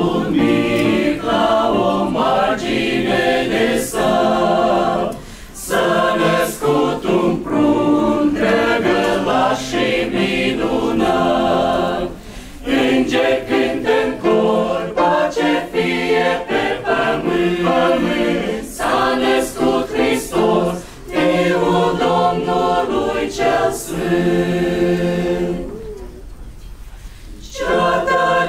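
Mixed choir of women's and men's voices singing a Christmas carol in long phrases, with short breath breaks between them; near the end it drops to a soft passage before the full choir comes back in.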